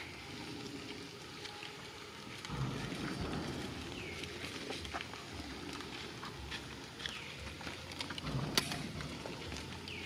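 Outdoor ambience: scattered small clicks and rustles in dry leaf litter, with wind rumbling on the microphone that swells about two and a half seconds in and again near the end. A few faint short high chirps come through now and then.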